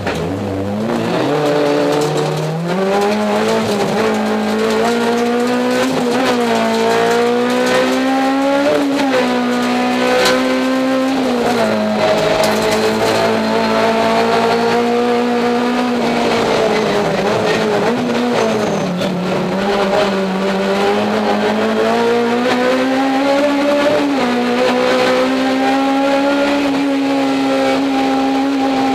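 Race car engine at racing speed, heard from inside the stripped cockpit. Its pitch climbs, then drops back sharply several times as the driver changes gear, with one longer fall and climb about midway through.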